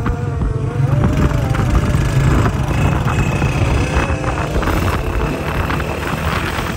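Honda CG125 motorcycles' single-cylinder four-stroke engines running steadily while riding at speed.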